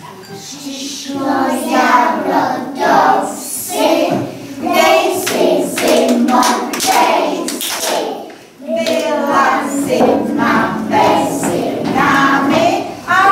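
A group of young children singing a song together, with a short break about eight and a half seconds in.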